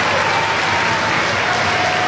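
Large stadium crowd applauding, a steady wash of clapping.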